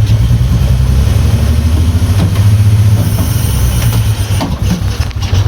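A vehicle engine idling steadily, its pitch lifting slightly about two seconds in, with a few faint knocks over it.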